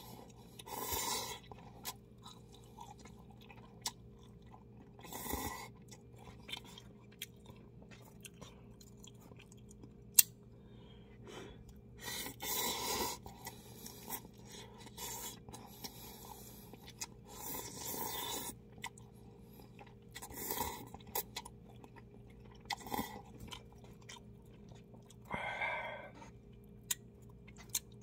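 A person slurping and chewing instant cup ramen noodles: several short slurps a few seconds apart, with quiet chewing between them. A single sharp click about ten seconds in.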